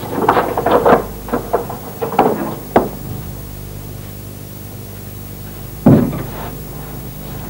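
Handling noises as a man takes things down from a hut's wooden wall: a run of knocks and rustles in the first three seconds ending in a sharp click, then one loud thud about six seconds in.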